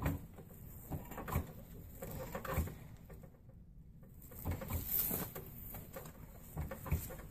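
Hand-braiding of rope strands: irregular soft knocks and rustles as the strands are crossed over and pulled tight.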